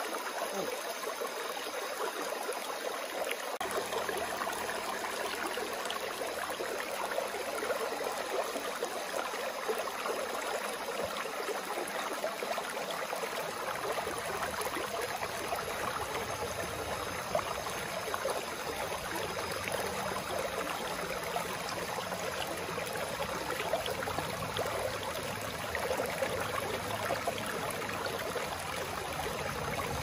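Mountain stream water flowing steadily, an even rushing sound with no breaks.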